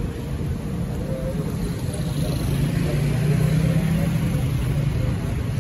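City street traffic: a steady rumble of motor vehicles, with one engine passing close and loudest about three to four seconds in.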